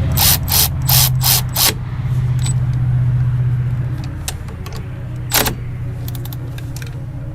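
A steady low mechanical hum throughout, with a quick run of five sharp metallic clicks in the first two seconds and one more about five and a half seconds in, as the brake caliper bolts are worked with a tool.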